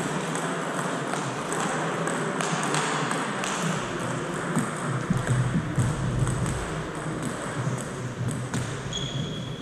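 Table tennis ball clicking off bats and table in a rally, about once a second, in a reverberant sports hall, over a low murmur of voices.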